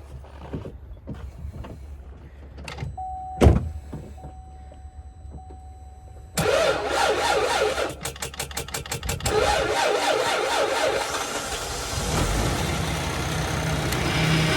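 A car engine being jump-started from a small portable jump starter in extreme cold: a click and a steady electronic tone, then about six seconds in the starter cranks rapidly for a second or two and the engine catches and keeps running. The battery is too weak to start it alone.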